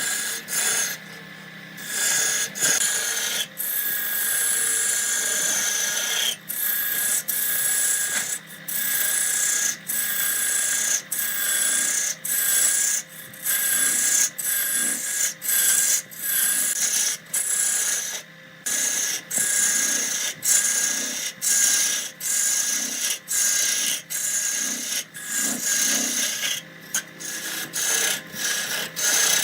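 Wood being cut on a lathe: a turning tool scrapes the spinning wood in short repeated strokes, about one a second, over a steady whine.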